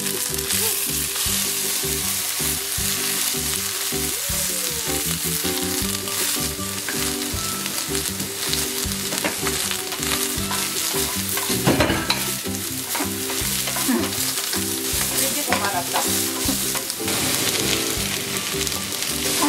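Cubed eggplant sizzling in hot olive oil in a stainless steel frying pan, starting as the pieces are tipped in, and stirred with a wooden spatula. A sharper clatter comes about twelve seconds in.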